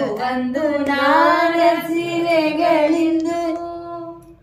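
A single voice singing a line of a Kannada devotional Dasa song without instruments: one long phrase with small ornaments, settling on a held note that fades out near the end.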